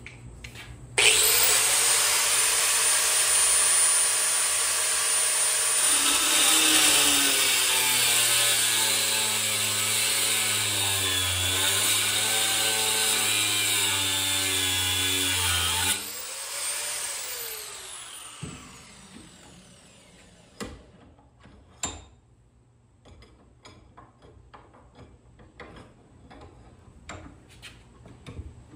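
Angle grinder switched on about a second in, running with a high whine, then cutting into a 1095/15N20 Damascus steel slab, its pitch dipping and wavering under load. It is switched off about two-thirds through and winds down with a falling whine, followed by a few light clicks and knocks.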